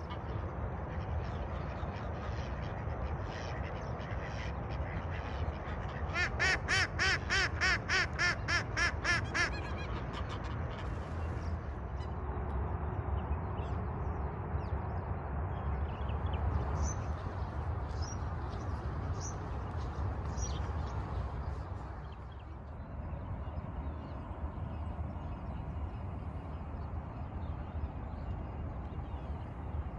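Ducks quacking: a loud, even run of about a dozen quacks lasting some three seconds, starting about six seconds in, over a steady low rumble. A few faint high bird chirps come later.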